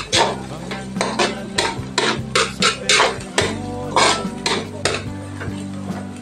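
Metal spatula scraping and knocking against a metal wok, about three strokes a second, while onions and garlic are stirred and sautéed in oil. The strokes stop about five seconds in.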